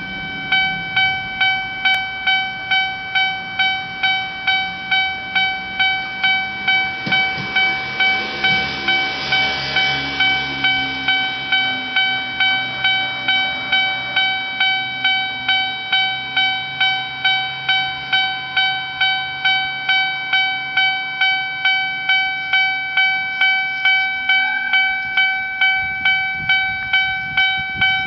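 Japanese level-crossing warning bell ringing, an electronic ding repeating about twice a second, which means a train is approaching. An engine rumbles underneath it through the middle.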